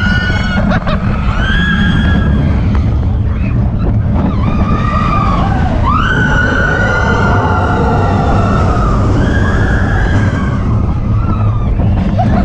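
Roller coaster riders screaming in long, held cries, several voices overlapping and rising and falling in pitch. Under them is the heavy rumble of wind and track from the moving coaster train.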